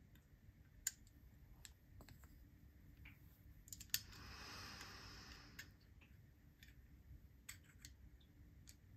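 A handful of faint, sharp clicks of a small metal driver tool working a folding knife's proprietary pivot screw, with a soft rubbing sound about four seconds in; the pivot is spinning with the tool instead of loosening.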